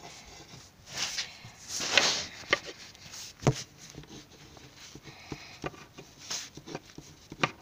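A pen scratching across paper in short strokes as words are handwritten, with a few sharp knocks in between.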